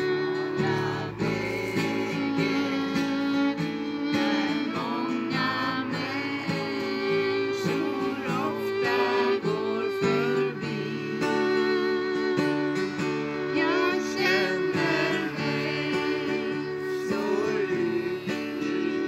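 An acoustic guitar being strummed and a violin playing along as two women sing a song together, without a break.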